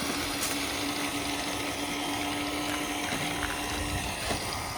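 Traxxas TRX-6 6x6 RC crawler's electric motor and geared drivetrain whining steadily as it drives slowly. The steady hum stops about four seconds in, followed by a few faint knocks.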